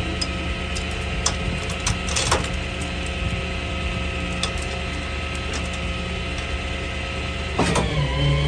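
Steel tow chains clinking and rattling as they are handled on a wrecker's wheel-lift, with a sharper metal clank about two seconds in, over the steady drone of the tow truck's engine running.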